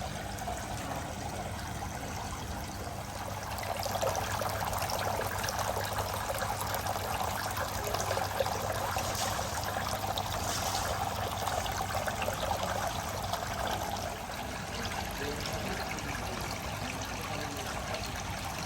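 Indoor decorative water fountain trickling and splashing steadily, growing a little louder about four seconds in and easing back after about fourteen seconds, over a faint low steady hum.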